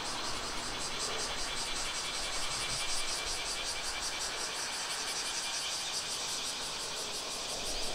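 Cicadas droning: a steady, high-pitched buzz with a fast, even pulse.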